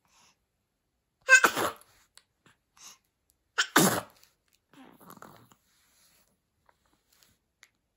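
A young baby sneezing twice, about two seconds apart, each sneeze short and loud, followed a second later by a soft, brief coo.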